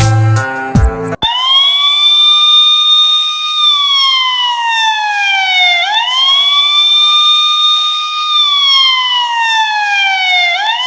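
Police siren wailing: the pitch rises quickly, holds, then slides slowly down, over two full cycles of about four and a half seconds each. A third rise begins near the end.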